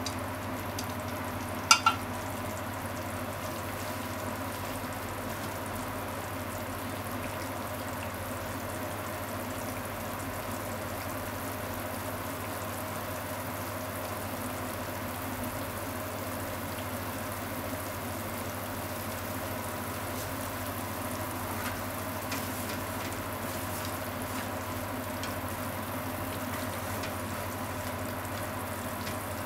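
Minced chicken simmering in its seasoned liquid in a frying pan, a steady sizzling and bubbling. Two sharp clicks about two seconds in are the loudest sounds, and near the end chopsticks stir through the mince.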